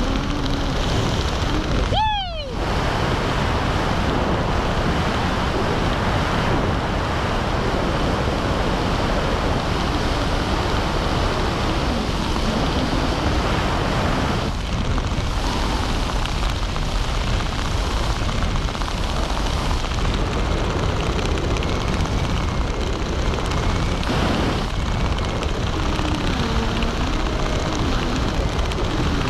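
Steady rush of wind over the camera microphone during a parachute descent under canopy. A short falling tone sounds about two seconds in.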